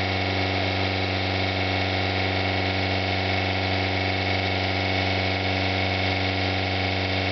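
Ford Orion's petrol engine running steadily at a constant speed with its coolant drained, overheating and pouring out steam and smoke.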